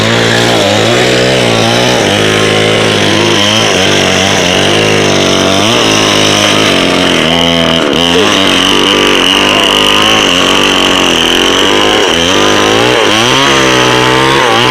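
A small engine running loudly, its pitch rising and falling over and over.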